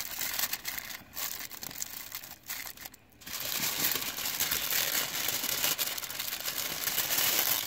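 Aluminum foil crinkling and crumpling as hands fold and crimp the seam of a foil-wrapped rack of ribs to seal it tight. The rustling comes in irregular handfuls, pauses briefly about three seconds in, then carries on more steadily.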